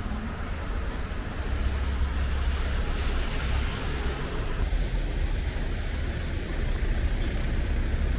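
Steady road traffic noise with a low rumble underneath.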